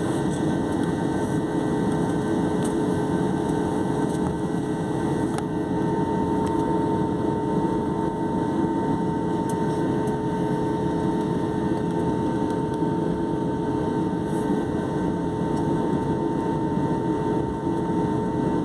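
Airliner's turbofan engines running at taxi power, heard inside the passenger cabin as a steady drone with a steady whine over it.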